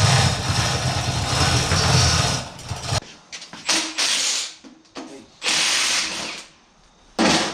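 A handheld power tool runs steadily with a low hum for about three seconds and then stops abruptly, followed by three shorter bursts of hissing noise.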